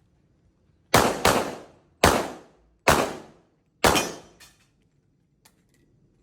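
Five pistol shots: a quick pair about a second in, then three single shots about a second apart, each with a short echo. A few faint ticks follow near the end.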